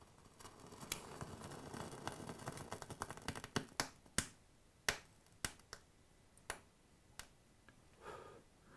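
E-liquid burning off a rolled stainless-steel mesh wick set alight with a lighter. It crackles and sizzles faintly for about three seconds, then gives scattered single pops that come less and less often as the flame dies out.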